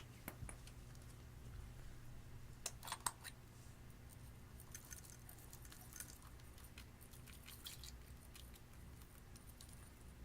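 Clear slime being worked by hand, giving faint sticky clicks and crackles at irregular moments, with a small cluster about three seconds in.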